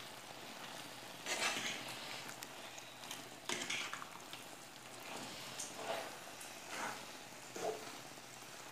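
Spinach and potato pieces sizzling softly in a frying pan while a spoon stirs them, scraping through the food and against the pan every second or two.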